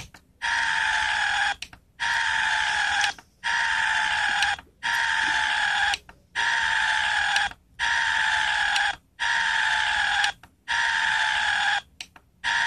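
A man's drawn-out scream, one short clip played over and over through computer speakers. It repeats about nine times, each scream a little over a second long and cut off by a brief gap before the next.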